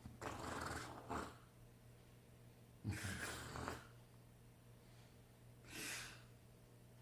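Sleeping man snoring, with a noisy breath about every two and a half to three seconds: the first two have a low rattle and the third is softer and breathier.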